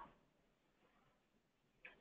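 Near silence: a pause between speakers, with a brief faint sound near the end just before speech resumes.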